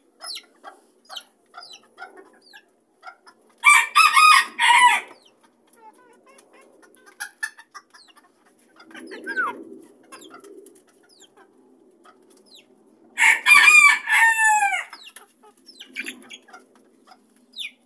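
Miniature (bantam) rooster crowing twice, a few seconds in and again about nine seconds later, the second crow ending in falling notes; hens cluck softly in between.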